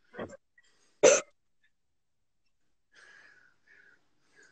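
A person's two short, sharp bursts of breath and voice under exertion, about a second apart, the second much louder.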